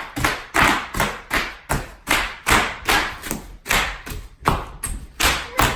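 Bubble wrap popping under rhythmic stomping, about three thuds a second, each with a burst of popping crackle.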